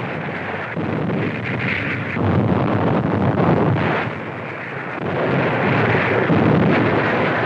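Battle sound effects from a newsreel soundtrack: a continuous rumbling roar of explosions and gunfire. It swells about two seconds in, eases off around the middle, and builds again.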